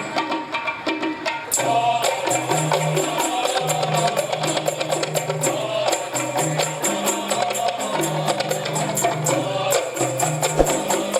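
Qasidah ensemble music: rebana frame drums and tambourine jingles beat a fast, steady rhythm under a wavering melody line and a bass line that steps between notes.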